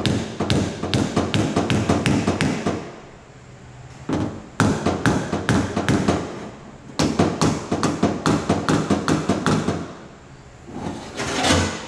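Body hammer tapping a dented car door panel with a body dolly held on the other side. The taps come about four a second in three runs with short pauses between them. With the dolly backing the metal, the blows sound solid rather than hollow.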